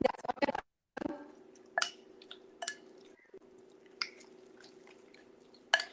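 Wet squishing and scattered clicks as egg and marinade are mixed into raw chicken pieces in a bowl, over a faint steady hum.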